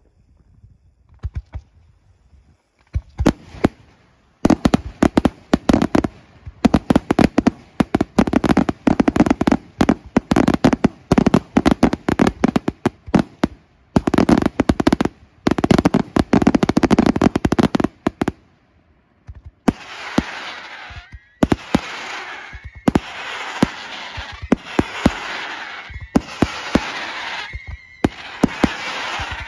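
Aerial fireworks shells from a Pannella display bursting overhead: after a quiet first few seconds, a dense barrage of bangs and crackling from about three seconds in, a short pause, then a steadier hissing crackle with sharp reports and a thin steady high tone running through it for the last third.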